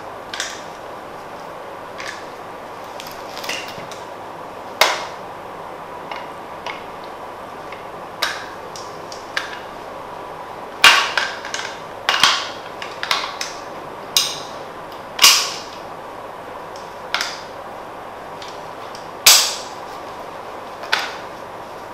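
Sharp metallic clicks and clacks of an AR-style carbine being handled and its parts worked, coming singly at irregular intervals, with a quicker cluster of louder ones about halfway through.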